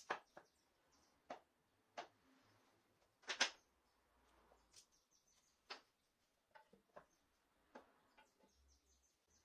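Wooden dowel pegs being pushed into the holes of wooden bar-clamp bars: about a dozen light, irregular wood-on-wood clicks and knocks, the loudest a quick double knock about three and a half seconds in.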